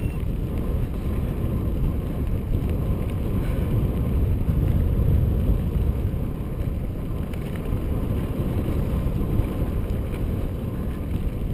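Steady low rushing of wind on a moving mountain bike's camera microphone, mixed with the tyres rolling over a dirt singletrack.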